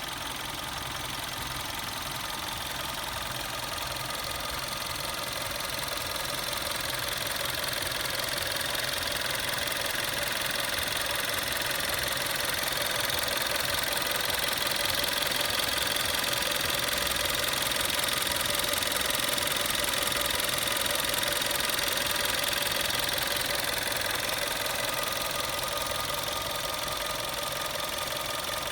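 Volkswagen Golf VI 1.4 TSI (122 PS) four-cylinder turbocharged petrol engine running steadily at idle. It is running with a new water pump fitted, without the noise that the worn water pump bearing had made.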